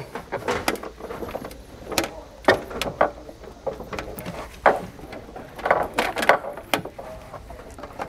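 Power wire being fed by hand through a grommet in the vehicle floor: irregular scraping and rustling of the wire and its loose coil, with light knocks.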